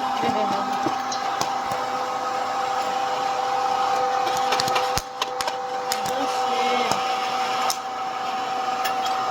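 Mini Joy electric hot-air popcorn maker running with a steady motor hum, with kernels popping and rattling in it as scattered sharp pops.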